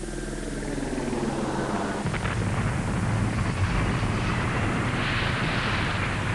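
A motor-like hum rising in pitch that swells into a loud, low rumbling roar, building over the first few seconds. It cuts off abruptly at the very end.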